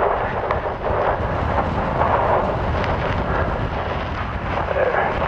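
Strong wind buffeting the microphone: a steady low rumble with a rushing hiss over it.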